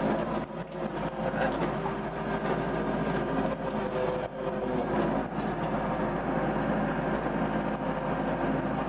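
Doosan DX55 mini excavator's diesel engine running steadily under load as its hydraulics work the arm and bucket while digging, with a few short knocks along the way.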